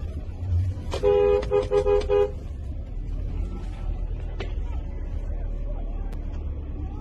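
A vehicle horn honks in a quick run of short blasts about a second in, lasting about a second and a half, over a steady low rumble of street noise.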